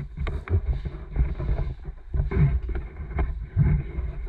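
Footsteps and gear knocks picked up by a body-worn camera as the airsoft player moves: irregular dull thumps and a few sharp clicks over a constant low noise of clothing and equipment rubbing near the microphone.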